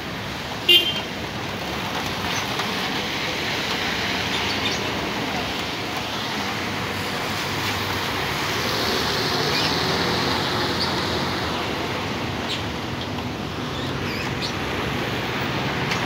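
Traffic on a rain-soaked road: a steady hiss of tyres on wet tarmac, swelling as a car passes around nine to ten seconds in. The low running of an intercity coach's diesel engine grows near the end as the coach pulls past. A single short, sharp blip sounds about a second in.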